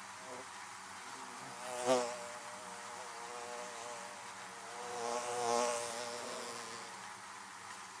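Honeybees buzzing at a hive entrance: a steady hum of many bees, swelling louder as bees fly close, sharply about two seconds in and more drawn out around five to six seconds in.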